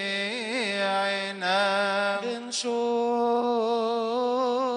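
A male voice chanting a melismatic Coptic liturgical melody, with long held notes that waver and turn in ornaments.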